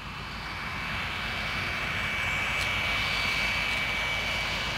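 Jet aircraft flying past: a rush of engine noise that swells and then eases slightly, with a steady high whine running through it.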